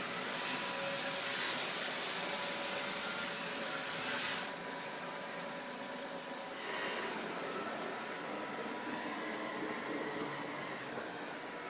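Roborock S6 MaxV robot vacuum running steadily as it drives across a laminate floor. Its sound dulls about four seconds in.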